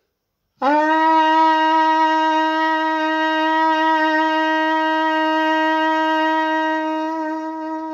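Trumpet with its main tuning slide removed, playing one long, steady note that bends up into pitch as it starts about half a second in and holds for about seven seconds. It is a lip-vibration warm-down exercise, a long tone that is meant to massage the lips.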